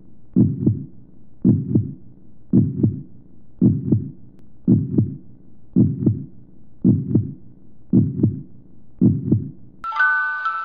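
Heartbeat sound effect: slow, even lub-dub double thumps, about one pair every second, nine pairs in all. Near the end the beats stop and a chiming, glockenspiel-like tune begins.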